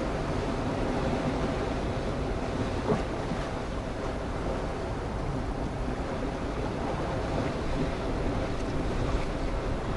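Sea waves washing against a rocky shore, with wind on the microphone as a steady rushing noise. A single light click about three seconds in.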